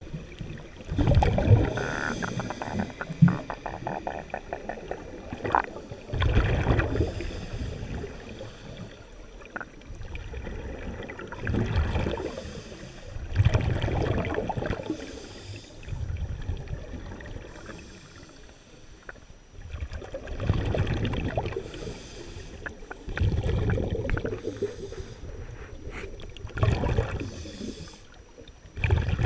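Scuba diver breathing through a regulator underwater: a burst of exhaled bubbles rumbling and crackling every three to six seconds, with quieter water noise between breaths.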